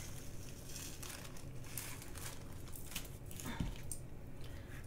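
Faint rustling and light clicking of small plastic drill bags being handled and sorted, scattered irregularly.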